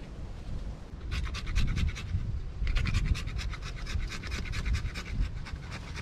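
A dog panting rapidly close to the microphone, about eight to ten quick breaths a second, in two runs, over a low rumble of wind on the microphone.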